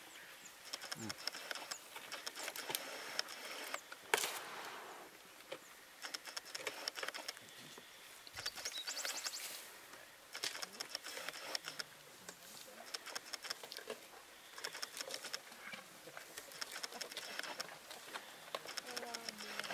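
An African elephant feeding on dry branches at close range: twigs crackle and snap in repeated clusters as it strips and chews them, with one sharp louder snap about four seconds in.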